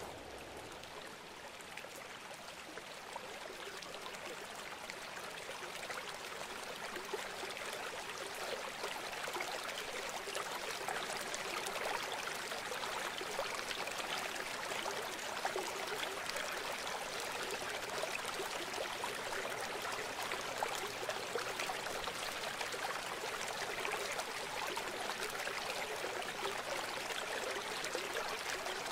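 River water running and babbling: a steady, fine-grained rush that grows louder over the first several seconds and then holds.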